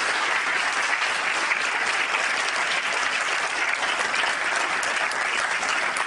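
A large theatre audience of about two hundred applauding steadily: dense, continuous clapping.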